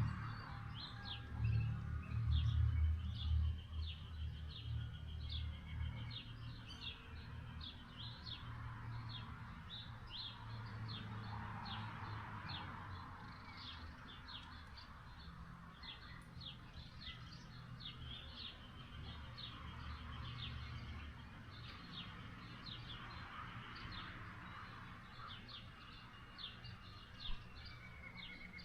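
Small birds chirping repeatedly, a few short high chirps a second throughout, over a low rumble that eases after about six seconds.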